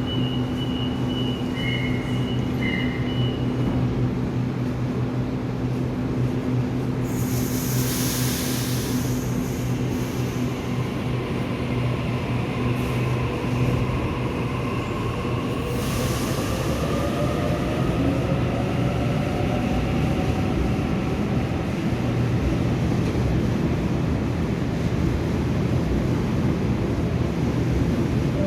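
Sydney Trains electric train at the platform: a steady low hum, two short hisses of air, one about 8 seconds in and one about 16 seconds in, and an electric motor whine that glides in pitch through the middle.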